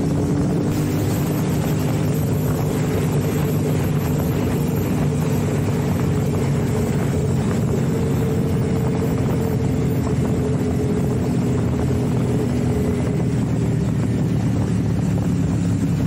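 Motorcycle engine running at a steady cruising speed while riding, its engine note holding level under a constant rush of wind and road noise.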